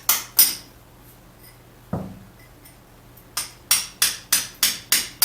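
Two-pound hammer striking a hand chisel to chip loose, crumbling material out of an old poured concrete wall. There are two quick strikes, a duller knock about two seconds in, then a steady run of about six strikes near the end, roughly three a second.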